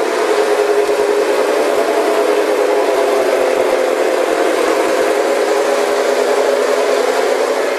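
Lionel Santa Fe El Capitan O-gauge train set running steadily around a loop of tubular three-rail track: a continuous rumble of the locomotive's motor and the wheels on the rails.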